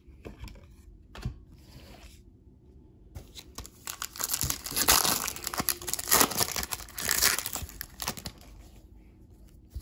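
Foil wrapper of a Panini Prizm Draft Picks trading-card pack crinkling and tearing as it is opened by hand. The crinkling starts about three and a half seconds in and fades near the end, after a few light clicks.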